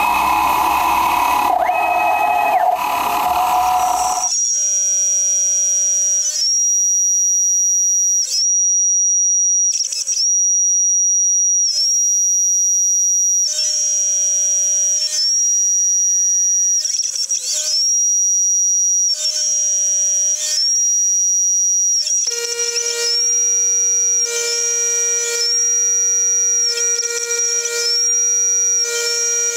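CNC mill cutting an aluminium block with a quarter-inch end mill. The first few seconds are a louder, hissy cutting noise that stops abruptly. After that comes a steady high-pitched whine with fainter lower tones, which dips and bends in pitch for a moment every second or two as the tool path changes direction.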